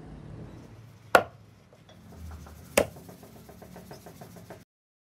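A vintage Underhill axe head on a curly padauk handle chopping twice into a wooden stump: two sharp knocks about a second and a half apart. Faint quick ticking follows, and the sound cuts off suddenly near the end.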